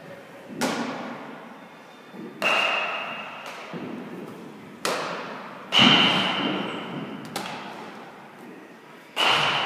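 Baseballs smacking into leather gloves as fastballs are thrown and caught: six sharp pops one to two and a half seconds apart, each echoing off the walls of a gymnasium.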